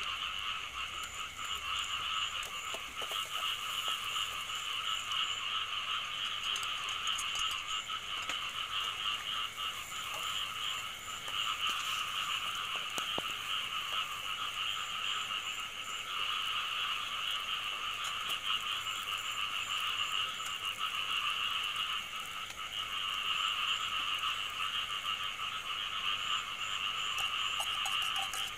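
A chorus of frogs calling without a break, the calls pulsing and overlapping. A few faint scrapes of a metal spatula stirring in a steel wok come through now and then.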